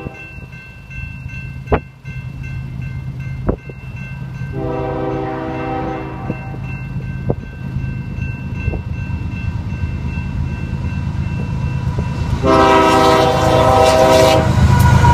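A locomotive's first-generation Nathan Airchime K5HL five-chime air horn sounding two chords: a shorter, fainter blast about five seconds in and a loud longer blast near the end. Under it a train's low rumble grows steadily louder, with a few sharp clicks.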